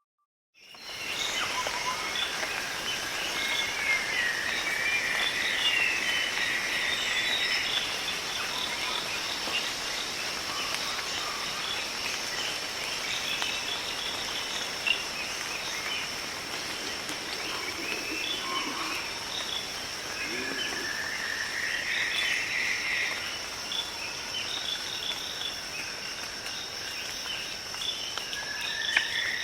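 Tropical rainforest ambience: a steady high-pitched insect drone, with a lower buzzing insect chorus that rises and swells three times, and many short bird calls scattered throughout. It fades in during the first second.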